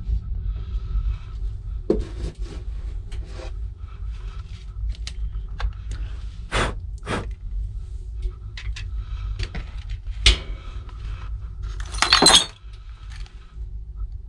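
Scattered knocks, clicks and clinks, with one longer rattling clatter about twelve seconds in, over a steady low rumble.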